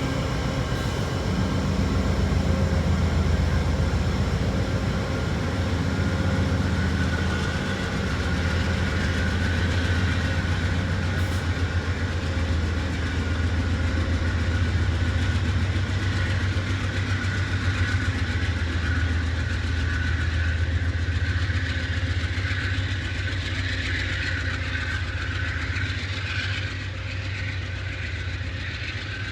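A passenger train's diesel locomotive running at a standstill: a steady low engine hum with a constant whine above it.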